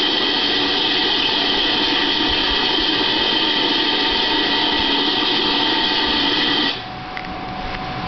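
Steady whir of a small motor with several fixed tones over a rushing noise like running water. It drops sharply in level near the end, where the higher tones stop.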